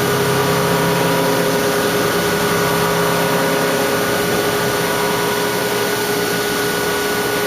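Haas 5-axis CNC machining center running steadily as it machines a valve seat pocket in a cylinder head: a constant whine of several steady tones over dense cutting noise. A lower hum underneath fades out about halfway through.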